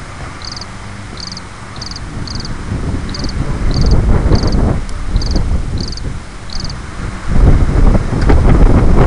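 Wind rumbling on the microphone, swelling a few seconds in, over a run of short high chirps about two a second that stop about two-thirds of the way through. Near the end the rumble is loudest, mixed with knocking as the camera is handled.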